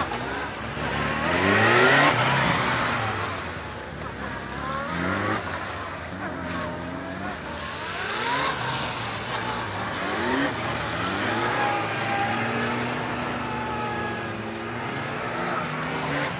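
Police motorcycle engines revving up and easing off again and again as the riders weave through a cone slalom. The pitch rises and falls in quick glides, and it is loudest as one bike passes close about two seconds in.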